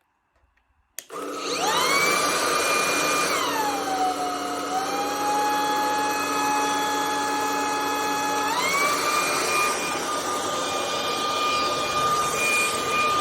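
Anyson cordless stick vacuum switched on, its motor whining up to speed within about a second, with a steady rush of air. About two seconds later the whine drops to a lower pitch and holds, then climbs back to the higher pitch near the last third.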